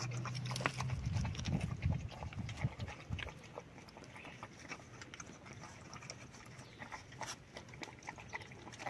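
Two puppies feeding from a plastic bowl, making quick, irregular wet smacking and clicking mouth sounds. A low rumble under the first three seconds then fades out.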